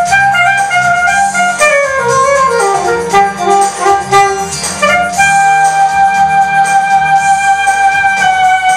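Alto saxophone playing a solo line over accompaniment with a steady bass. It plays a run of notes falling in pitch, then holds one long high note from about halfway through.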